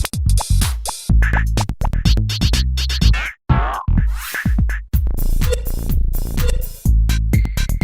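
Electronic music with drum-machine beats and chopped, stuttering sampled sounds.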